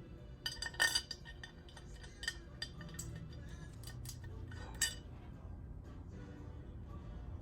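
Small metal parts clinking and tapping against each other as engine bolts and pieces are handled during assembly: a cluster of sharp clinks about a second in, scattered ones after, and another sharp clink near five seconds.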